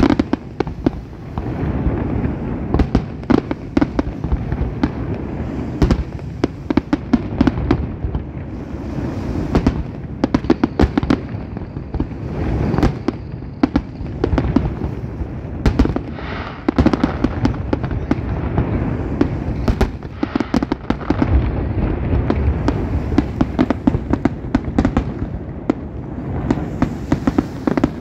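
Aerial fireworks display: shells burst in a dense, unbroken run of sharp bangs and crackles over a constant low booming.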